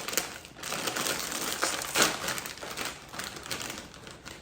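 Crinkling of a Flamin' Hot Limón Cheetos bag being handled and rustled, a dense run of crackles with one louder crackle about two seconds in.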